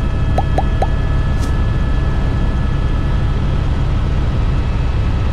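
Airbus H125 (AS350 Esquilo) helicopter in flight, heard from inside the cockpit: a steady low rumble of main rotor and Arriel turboshaft, with thin steady high tones over it. About half a second in, three short rising chirps come in quick succession.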